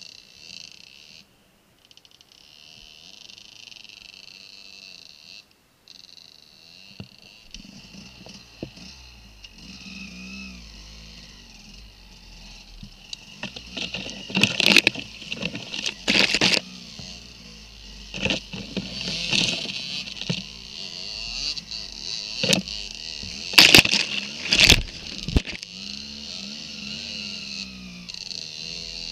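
A dirt bike engine running at low revs, picking up about seven seconds in, under a steady high hiss. From about halfway come loud repeated cracks and knocks as branches strike and snap against the bike and rider in dense brush.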